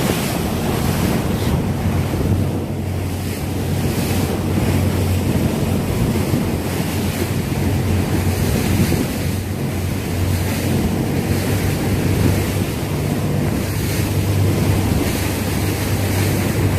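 Wind buffeting the microphone and water rushing past a moving boat, over the steady low hum of the boat's engine.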